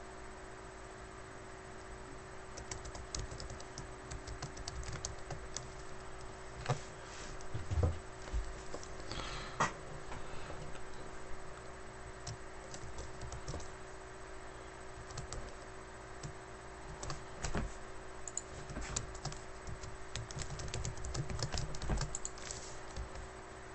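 Typing on a computer keyboard: scattered keystrokes in short, irregular runs, coming more thickly over the last several seconds.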